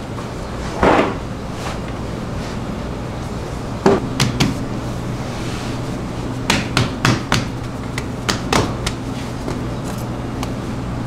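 Sharp knocks and taps from hands and tools working a large mass of dough on a worktop: a pair about four seconds in, then a run of six or seven more between about six and nine seconds. A steady low hum runs underneath.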